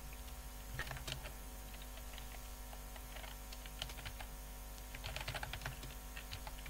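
Typing on a computer keyboard: a few short runs of keystroke clicks with pauses between them.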